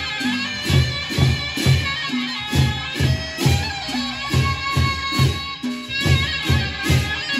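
Lombok gendang beleq ensemble playing: the big barrel drums beat a steady pattern of about two strokes a second, with clashing cymbals and gongs and steady high tones ringing above.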